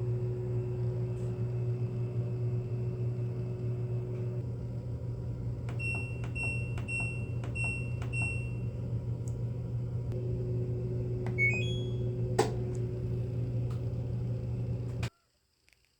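An electric household appliance humming steadily, with electronic beeps: five evenly spaced beeps about six seconds in, a short rising run of button beeps near eleven seconds, then a click. The hum cuts off suddenly about a second before the end.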